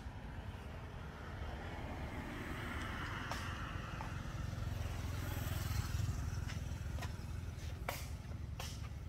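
Low engine rumble of a passing motor vehicle, swelling to its loudest about halfway through and then easing off, with a few faint clicks.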